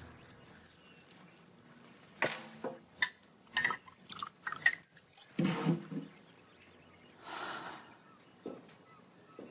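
Glass bottle and shot glasses clinking as they are handled, a quick run of sharp clinks from about two seconds in, then liquor being poured into a shot glass.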